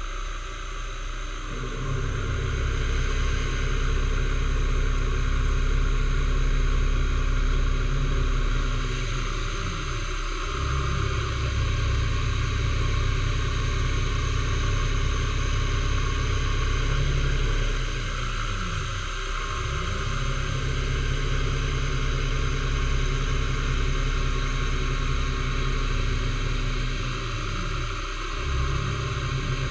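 Milling machine running while an end mill cuts a metal block for an anchor windlass bearing carrier. A steady motor hum and hiss carry through. About every nine seconds, three times in all, the motor note drops away and climbs back as the table feed slows, reverses and speeds up again.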